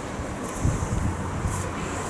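Wind rumbling on a handheld phone's microphone, with a couple of faint ticks about half a second and a second and a half in.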